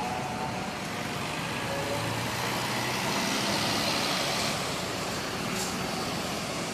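Road traffic noise: vehicle engines and tyres running steadily, swelling a little in the middle as a vehicle passes. No horn is clearly heard.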